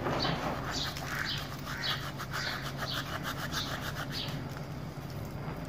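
Dried coriander seeds being crushed by rubbing the palms together over a steel bowl: a rhythmic dry rasping, about two strokes a second.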